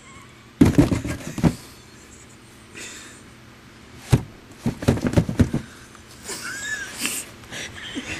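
Bumps, knocks and scuffs from a handheld camcorder being pushed under a bed frame: one cluster about a second in, a sharper knock and a second cluster from about four to five and a half seconds in. A brief high squeak comes near the end.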